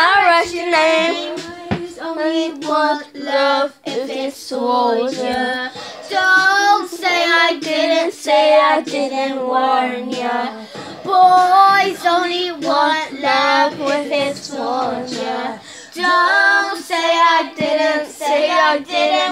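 A child singing, holding long wavering notes with vibrato, phrase after phrase with short breaks.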